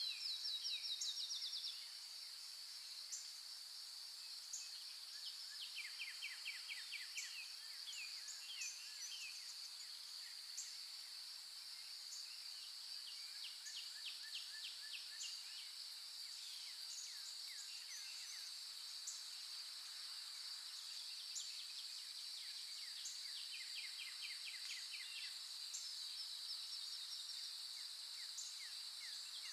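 A steady, high-pitched drone from a chorus of insects, with bursts of rapid chirping trills and small high chirps that recur every few seconds over it.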